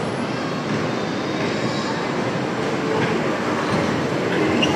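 Miniature ride-on train running along its track, a steady rolling noise from the small cars and wheels on the rails, with a faint steady whine partway through.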